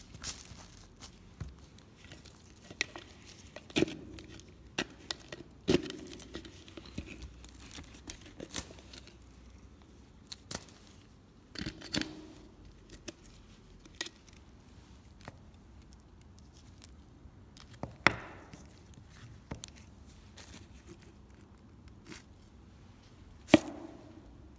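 A cured epoxy puck and plastic mixing cups handled and set down on plastic sheeting: scattered taps and knocks with crinkling plastic. The loudest knock comes about three-quarters through, with another sharp one near the end.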